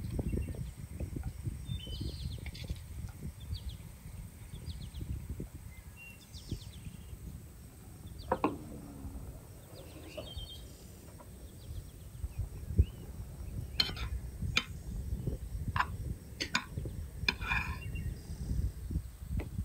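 Metal spoon clinking and scraping on an earthenware plate several times in the second half. Behind it are a low steady outdoor rumble and scattered small bird chirps.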